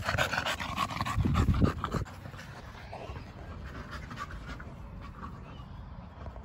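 A micro bully dog panting rapidly and close up. The panting stops abruptly about two seconds in, leaving only a faint background.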